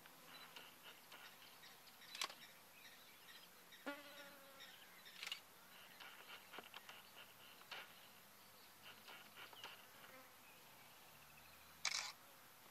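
Quiet bush ambience: faint, high chirping repeating several times a second, broken by a few sharp snaps or clicks, the loudest near the end, and one short falling call about four seconds in.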